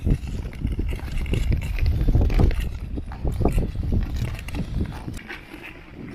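Long-blade tour skates scraping and gliding over thin snow on lake ice, with pole tips striking the ice in irregular knocks, under a heavy low rumble of wind on the microphone. It quietens after about five seconds.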